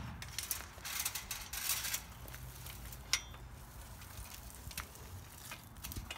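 Metal chain-link gate rattling and clicking as it is handled, with rustling steps on dry leaves and mulch; a sharp single click about three seconds in.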